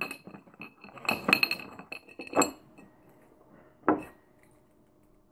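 A drinking glass clinking and knocking as it is handled, with a quick run of ringing clinks in the first couple of seconds and a single knock about four seconds in.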